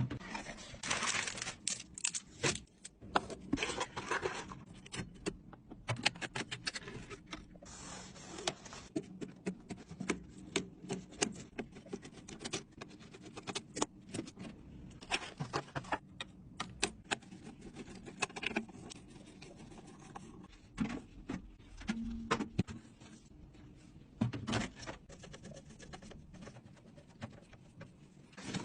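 Irregular clicks, taps and scrapes of computer parts being handled and fitted together during a PC build, with short stretches of rubbing or scraping between the clicks.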